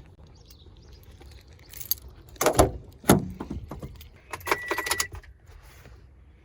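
Keys jangling, with two loud thumps about two and a half and three seconds in, and a short steady high beep near the end of the jangling.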